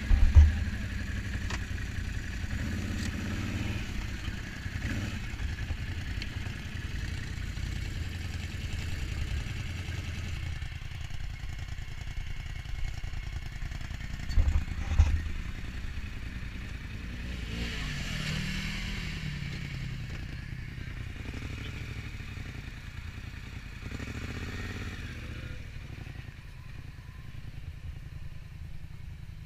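Quad bike (ATV) engines running at idle. About halfway through, a quad moves off right beside the microphone with a couple of loud low bursts of throttle. A few seconds later an engine revs up and down.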